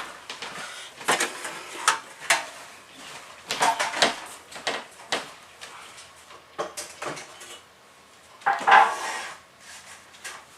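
Hard household objects knocking and clattering as they are handled and set down: a string of separate clacks, with a longer, louder clatter about three quarters of the way through.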